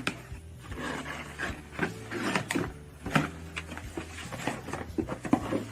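Glossybox cardboard subscription box being opened and handled: irregular scrapes, taps and rustles of cardboard and packaging.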